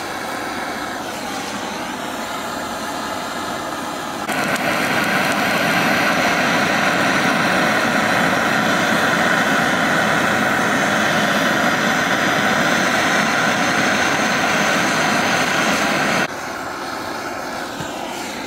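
Handheld butane torch on a gas canister, its flame hissing steadily as it singes the hair and skin of raw cow legs. The hiss grows louder about four seconds in and drops back near the end.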